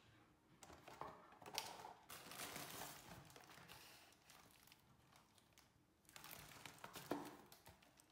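Quiet rustling and light clicks of household items being handled, in two bouts: one about half a second in lasting some three seconds, and a shorter one near the end.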